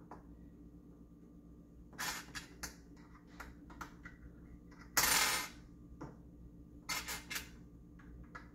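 Small metal screws clinking on a glass tabletop as they are handled: a few scattered clicks, a louder brief clatter about five seconds in, and more clicks near the end.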